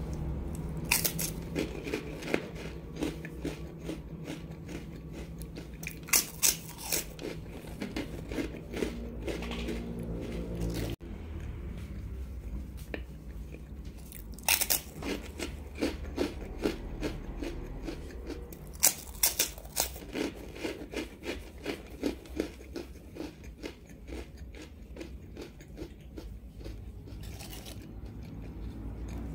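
Puffed rice crackers being bitten and chewed close to the microphone: several bursts of loud, crisp crunching as bites are taken, with quieter chewing in between.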